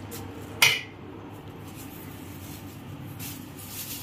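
A metal spatula clinking once, sharply, against a stainless-steel mixing bowl about half a second in, while stirring mango pickle.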